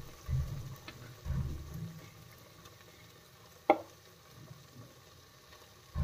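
Cooked rice being pushed from a plate into a pot of stir-fried vegetables and stirred in, with soft thumps of handling in the first two seconds and one sharp knock about two-thirds through, the food frying faintly.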